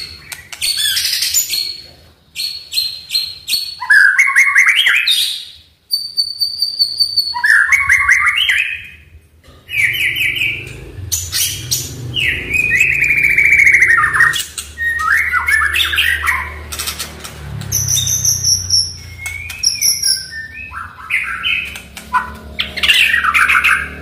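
White-rumped shama singing a long, varied song of rapid trills, chattering phrases and clear whistles, with a few short pauses between phrases.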